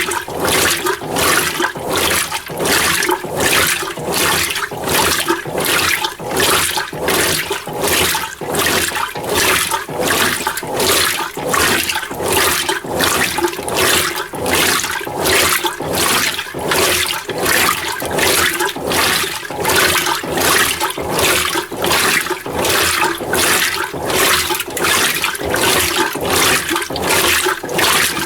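Mueller Energy 8 kg top-load washing machine agitating a small load in water, sloshing back and forth in an even rhythm of about two surges a second over a low motor hum.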